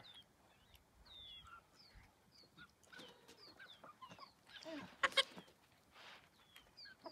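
Domestic chickens calling, with many short, high, falling chirps throughout and one louder, harsh call about five seconds in.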